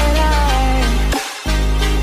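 Background music with a heavy bass and a gliding lead melody; the bass drops out briefly just after a second in.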